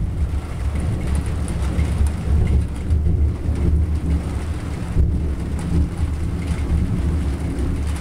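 Thunder rolling in one long, deep rumble that swells and eases without stopping.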